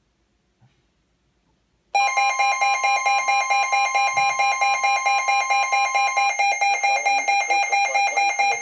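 Emergency alert tone from a weather radio broadcast: a loud electronic signal of several steady pitches, pulsing several times a second, starting about two seconds in after near silence. One of its pitches drops out about two-thirds of the way through.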